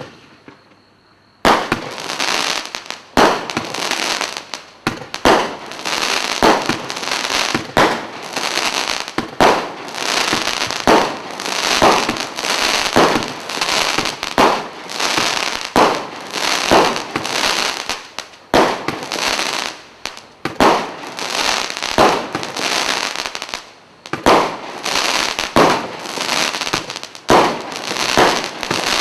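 Black Cat Centurion 105-shot barrage cake firing in sequence from its single ignition. One bang, a pause of about a second and a half, then loud shots in quick succession, about one to two a second, overlapping with only brief gaps.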